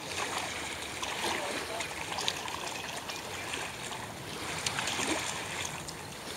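A corgi splashing through shallow river water as it wades ashore, with irregular small splashes over the steady wash and lapping of the river at the bank.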